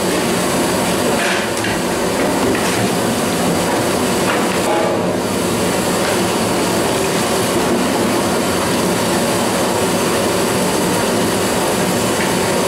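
Steady, loud commercial-kitchen roar with a few faint knocks, while a long steel ladle stirs a large steel pot of sambar.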